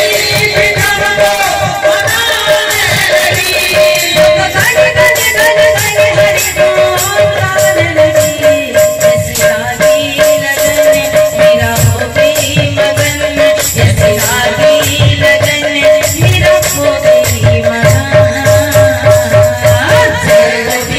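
Live kirtan music: a woman singing a devotional song over hand drums, a steady held note and fast, continuous clashing of small cymbals.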